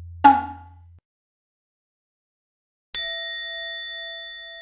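Editing sound effects over title cards: a low tone fading out and cut off about a second in, a short sharp hit just after the start, then about three seconds in a bright bell-like ding that rings on and slowly fades.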